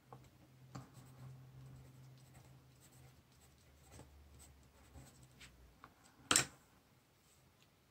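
Derwent Metallic coloured pencil writing on paper: faint, scratchy strokes in the first few seconds. A single short, sharp knock about six seconds in.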